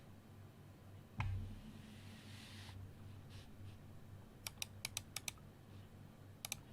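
Mechanical keyboard with Aliaz Silent 60g linear switches and GMK keycaps, typed on in short runs of quiet key presses. About a second in there is a dull thump and a brief hiss, then five quick key clicks and two more near the end.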